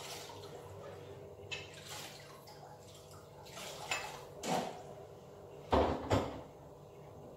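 Kitchen clatter of metal pots and cooking utensils: scattered clinks and knocks as the cook works at the stove, with two louder knocks close together about three-quarters of the way through.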